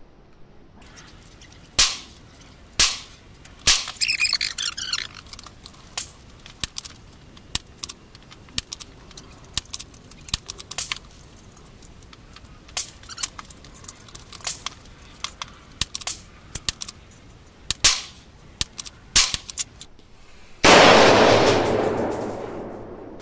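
Gunfire at a shooting range: a few loud, sharp shots early on and again later, with many fainter shots and clicks between them. Near the end comes one much louder, heavier shot that rings on for about two seconds.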